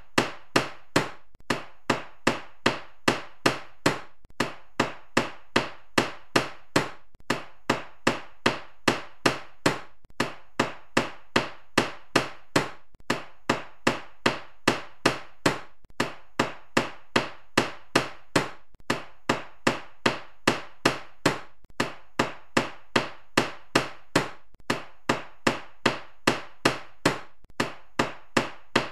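Carpenter's hammer striking over and over in a steady rhythm of about three blows a second, with a brief pause every three seconds or so.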